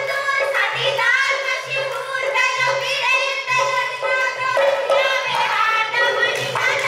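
Women singing Punjabi folk boliyan for a giddha dance, amplified through stage microphones, over a pulsing low beat.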